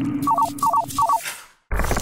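Electronic logo-animation jingle: a steady low drone under three quick clusters of short high blips, fading out about a second and a half in, then a short loud noisy burst near the end.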